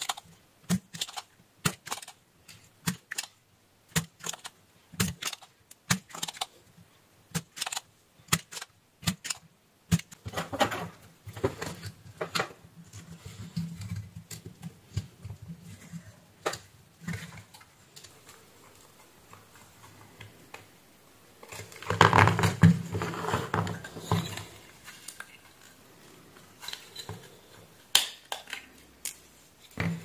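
Sharp clicks of a desoldering pump, cocked and fired again and again as the transformer's pins on a microwave oven control board are desoldered. Then comes rustling and scraping as the board is handled, loudest about two-thirds of the way through, when the transformer is worked loose.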